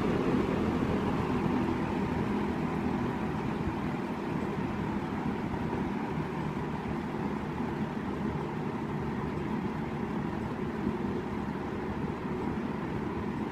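A 1971 Lakewood Country Aire P-23 box fan running on its low speed, with a steady motor hum and the rush of air from the blade. The sound gets quieter over the first few seconds as the fan slows from medium, then settles.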